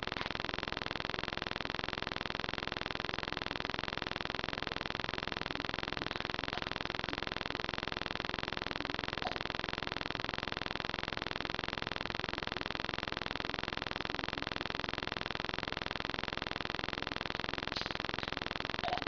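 Steady, even background hiss, with a few faint, brief small sounds, mostly near the end.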